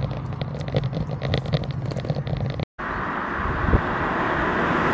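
Several light clicks over a low hum, then, after a sudden cut, a steady rush of road traffic and wind that grows a little louder.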